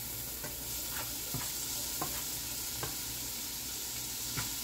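Small pieces of seasoned chicken sizzling in very hot oil in a frying pan, with a spatula stirring and scraping against the pan in short clicks every second or so.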